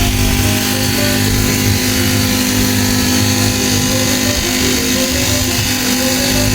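A small motor running steadily, with background music playing a simple stepping melody over it.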